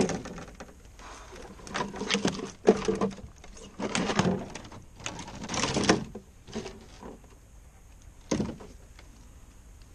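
Irregular rustles, bumps and knocks from hands handling a largemouth bass and working a soft-plastic lure out of its mouth in a canoe, coming in about half a dozen short bursts with a sharp knock right at the start.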